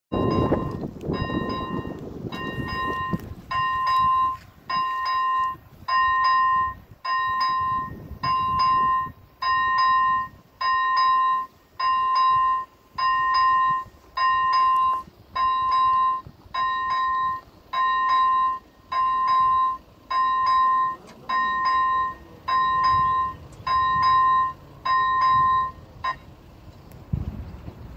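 Level-crossing warning signal sounding repeated electronic bell tones, a little less than one a second, while the crossing is closed for a train. The tones stop shortly before the end, with wind on the microphone at the start.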